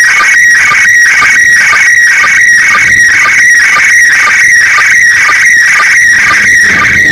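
Slow-scan television (SSTV) picture signal from the International Space Station, heard through an amateur radio receiver's speaker: a loud, steady warbling tone around 2 kHz broken by short lower beeps about twice a second, the sync pulses that mark each new scan line of the image.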